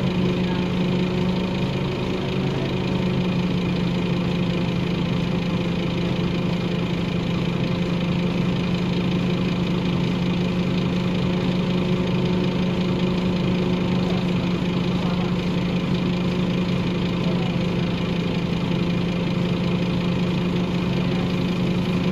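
Scania OmniCity bus engine idling steadily, heard from inside the passenger saloon as an even, unchanging hum.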